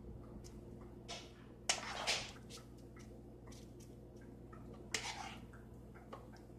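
Spoon scraping and tapping as batter is scooped into paper muffin liners in a muffin pan: a few short wet scrapes, the loudest a couple of seconds in and another about five seconds in, with light ticks between, over a faint steady hum.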